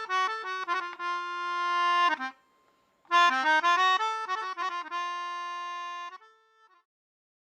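A melody on a free-reed instrument: a phrase of held and stepping notes, a break of under a second a little over two seconds in, then a second phrase that ends on a held note and stops well before the end.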